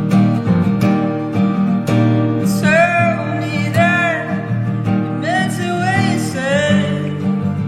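Recorded song with acoustic guitar strumming.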